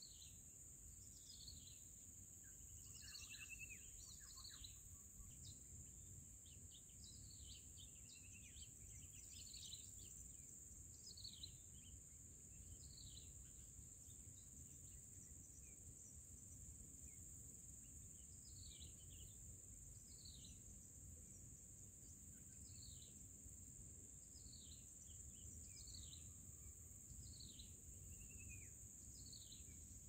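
Faint, short high chirps that fall in pitch, repeating about once every second or so with a few gaps: shrike chicks begging in the nest. A steady high hiss runs underneath.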